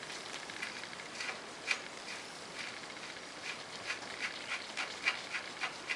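Scattered light clicks and clinks of small metal parts being handled at the front wheel hub, as the spindle nut hardware and washer come off ahead of the brake rotor.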